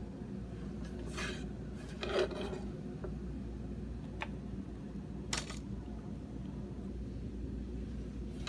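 A few short scrapes and rustles as chopped onion is scraped and scattered onto a pizza, over a steady low hum.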